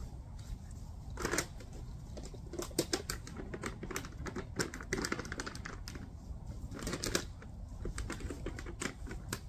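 Footsteps of a person and a dog crunching through dry leaf litter and twigs on a woodland floor: irregular crackles and snaps, some in quick clusters.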